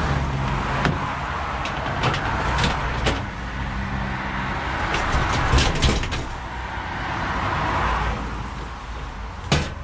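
Road traffic going by, swelling and fading twice, with scattered sharp clicks and clanks of hand tools working on scrap metal.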